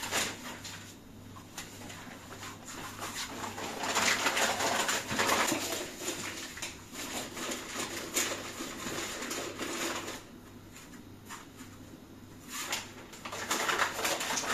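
Paper rustling and crinkling as kitchen glassware is wrapped and packed into a cardboard box, with a few light knocks. The rustling is loudest about four to six seconds in and again near the end.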